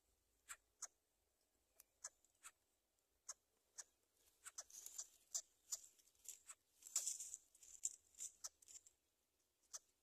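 Faint scattered clicks, then a denser stretch of crackling rustle from about four seconds in to near the end: dry grass and bamboo-leaf nest material shifting as the greater coucals move in the nest.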